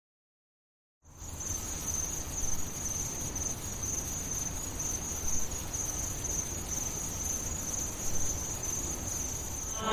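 Crickets chirping in a steady high-pitched trill, starting suddenly about a second in after dead silence.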